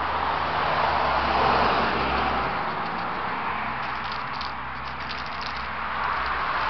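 Honda Shadow Spirit 750's V-twin engine idling steadily.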